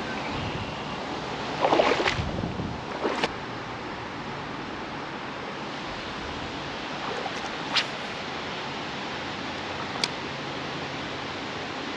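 Steady rush of flowing creek water, with a few brief louder splashes or knocks: a cluster about two seconds in, then single ones around three, eight and ten seconds.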